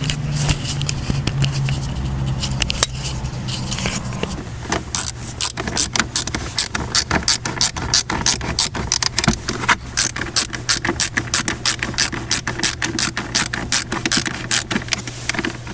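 A ratchet wrench clicking rapidly and steadily, about five clicks a second, as a 10 mm bolt is run in. The clicking starts a few seconds in, after a steady low hum.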